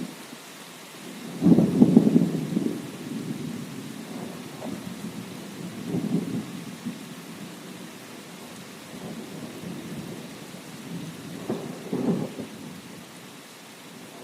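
Steady rain with thunder rumbling over it: a loud peal starting about a second and a half in, then weaker rumbles around six and twelve seconds.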